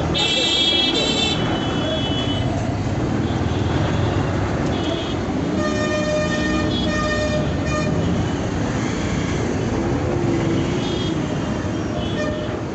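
Busy city road traffic with vehicle horns honking. Several short honks come in the first second or so, then a longer honk, broken into a few blasts, comes around the middle, all over a steady traffic rumble.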